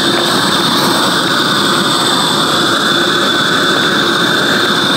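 Propane flame burning steadily: a loud, even hissing rush with a steady high whistle in it.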